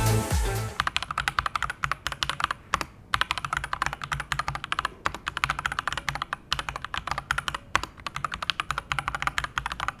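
Typing on an Akko 3098N mechanical keyboard with TTC switches and PBT keycaps: a fast, uneven stream of key clicks and clacks, starting about a second in as music fades out.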